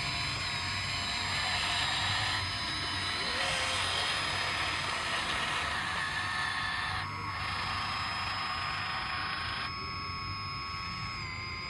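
Electric motors of an RC model excavator running with a steady high whine over a hiss, the pitch dipping and wavering briefly near the end.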